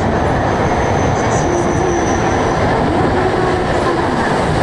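E6-series Shinkansen, coupled to an E5, running past the platform: a steady, loud rumble of the cars and wheels. A thin high squeal rides over it from about half a second in until about two and a half seconds in, and a low hum repeatedly rises and falls in pitch.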